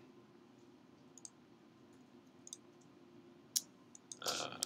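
A few faint computer mouse clicks over a low steady hum, with one sharper click about three and a half seconds in.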